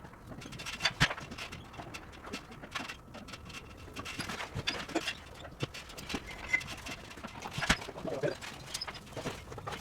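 Scattered knocks and clicks, with two sharp bangs: one about a second in and one a little before the eight-second mark.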